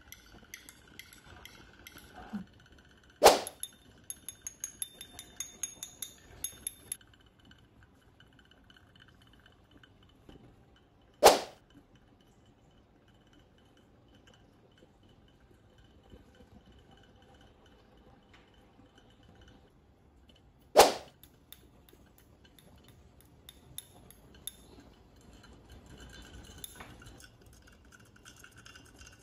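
Glass labware clinking: three sharp, ringing clinks spaced several seconds apart, with a run of light glassy ticks just after the first one.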